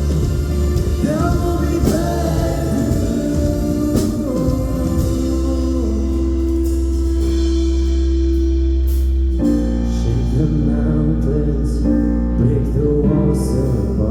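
Live church worship band playing a slow worship song, with singing voices over sustained chords and occasional drum and cymbal hits; the band holds one chord for several seconds before moving to the next about nine and a half seconds in.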